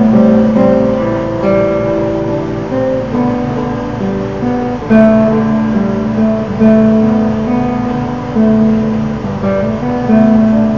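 Solo nylon-string classical guitar fingerpicked: a slow melody over bass notes, each plucked note left ringing into the next.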